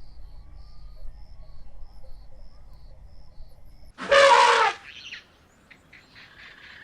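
An Asian elephant gives one short, loud call about four seconds in, lasting under a second. Before it, faint, evenly repeated high chirping runs over a low background hum.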